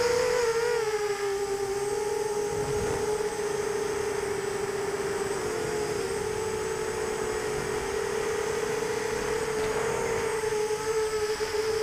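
FPV quadcopter's brushless motors and propellers whining steadily in flight, heard from the onboard camera, the pitch wavering a little up and down with the throttle.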